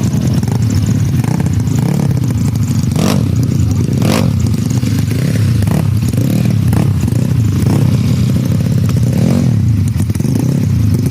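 Racing-tuned Yamaha Mio scooter engines running and revving, with people's voices mixed in.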